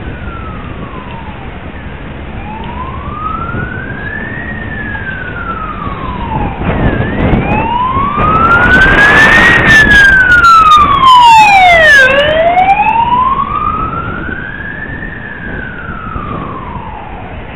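Emergency vehicle siren in a slow wail, rising and falling about every five seconds. It grows louder to a peak around the middle and fades again towards the end as it passes close by, over steady road and wind noise.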